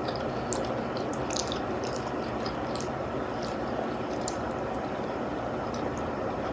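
Close-up wet mouth sounds of someone chewing spaghetti and meatballs in sauce: soft squishy clicks over a steady background hum.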